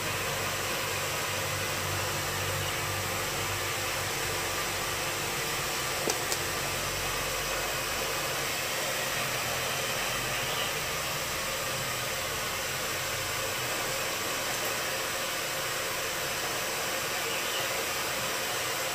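Steady hiss of even background noise, with two faint short clicks about six seconds in.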